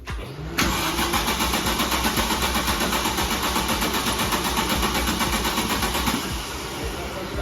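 Volkswagen Citi Golf's four-cylinder petrol engine starting and running loudly with a fast even beat, dropping to a lower, steadier running level about six seconds in.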